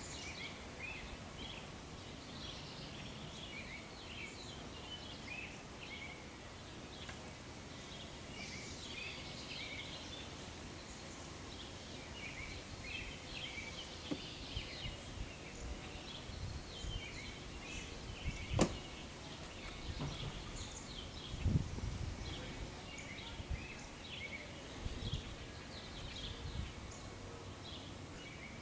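Small birds chirping and twittering over outdoor background noise. There is one sharp click a little past halfway, and a few dull low thumps after it.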